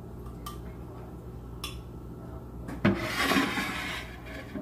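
A spoon clicks twice against a blender jar, then scrapes loudly for about a second while scooping out carrot and ginger puree. A low steady hum runs underneath.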